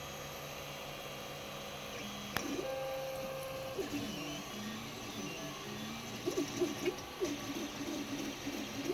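3D printer running a fast print. Its stepper motors whine in tones that step and glide in pitch as the print head moves, after a steady hum for the first two seconds. From about six seconds in the tones turn into short, quick chirps.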